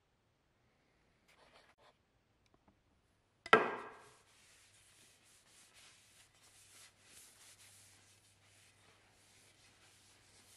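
Paper towel rubbing boiled linseed oil along a wooden axe handle: a faint, continuous scuffing. About three and a half seconds in there is one sharp knock that rings briefly.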